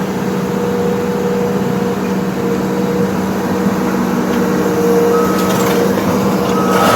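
Heavy machine's diesel engine running steadily with a low drone, and a brief higher tone a little after five seconds and again near the end.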